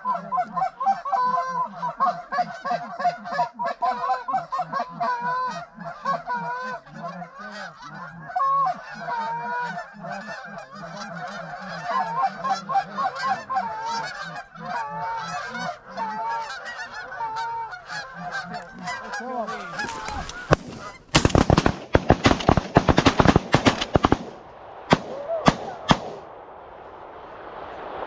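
A flock of Canada geese honking continuously as they come in to decoys, then, about 21 seconds in, a rapid volley of a dozen or so shotgun blasts from several guns, followed by a few scattered shots.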